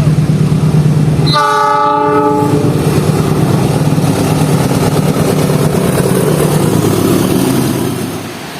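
Diesel locomotive horn of an Indonesian train sounding the semboyan 35 horn signal: one multi-note blast about a second long, about one and a half seconds in. Under it the train rumbles steadily as it passes, easing off near the end.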